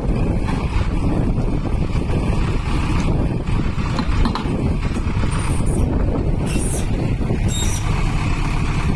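Diesel engine of a JCB 3DX backhoe loader running steadily while it works an electromagnet loading scrap iron. A few brief high squeaks are heard between about six and seven and a half seconds in.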